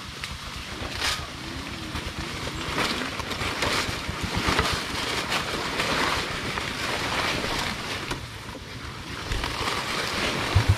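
Underbone motorcycle's small single-cylinder engine running, with wind buffeting the microphone.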